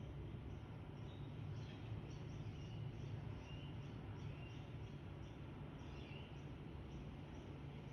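Faint, short bird chirps repeating over a steady low hum.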